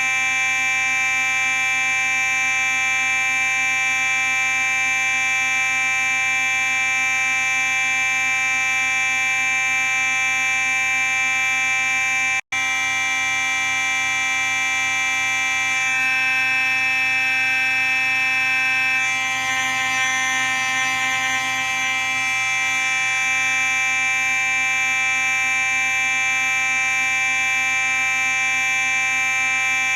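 Simplex 4903-9838 fire alarm horn sounding a steady, continuous buzzing tone, broken once by a momentary dropout about twelve seconds in.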